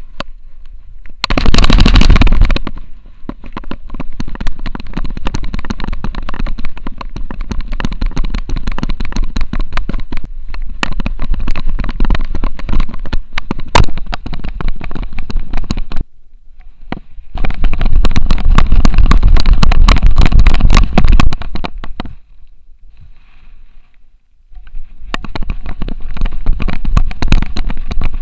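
Wind buffeting and a rapid run of knocks and rubbing from an action camera strapped to a running French Bulldog's harness, jolted by the dog's stride. The heaviest buffeting comes briefly about a second in and again for several seconds past the middle, followed by a short lull.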